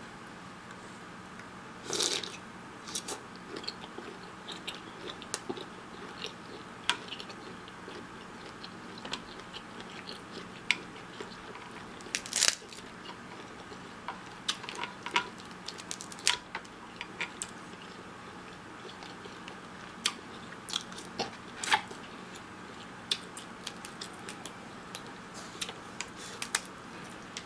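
Close-miked eating: a person biting and chewing seafood boil, with many short wet clicks and crunches and a few louder sharp cracks.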